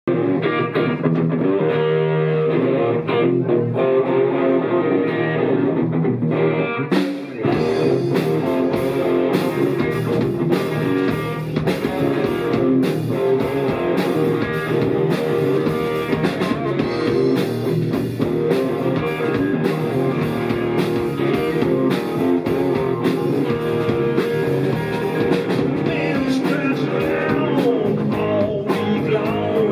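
Live rock band with electric guitars, bass and drum kit. It opens with guitar alone, without drums; about seven seconds in, the drums and bass come in and the full band plays on loudly.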